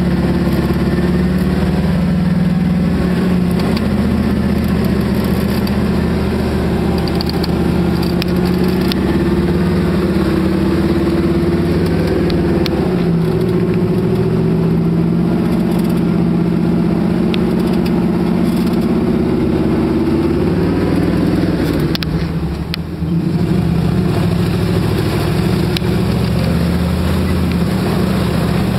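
Jeep engine running steadily under light load, heard from inside the cab while driving slowly off-road; its pitch drifts a little, and the sound dips briefly about three-quarters of the way through before picking up again.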